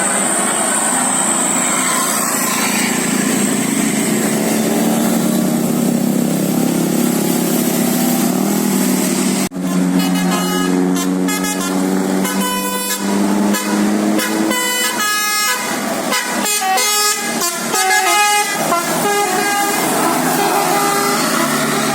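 Indonesian bus 'telolet' musical horn playing a basuri-style tune: long held multi-note chords, then, after a sudden break about halfway through, a quick run of changing notes.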